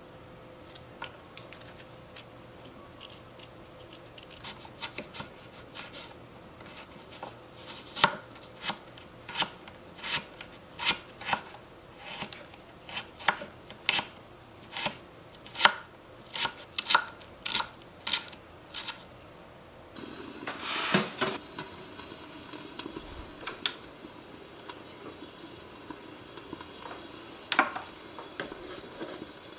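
Small knife chopping a tiny carrot on a miniature wooden cutting board: a regular run of sharp taps, about two a second, through the middle, after faint scraping as the carrot is peeled. Later a short clatter and one single knock.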